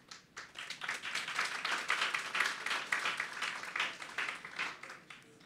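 Audience applauding, swelling over the first couple of seconds and fading out near the end.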